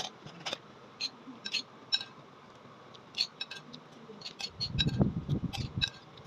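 Metal spoon clinking and scraping against a ceramic soup bowl in quick, irregular taps as the last of a bowl of noodle soup is eaten. About four and a half seconds in comes a low rumble lasting over a second, the loudest sound here.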